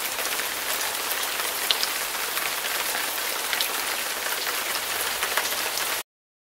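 Heavy rain falling: a steady hiss with a few faint drop ticks, cutting off suddenly near the end.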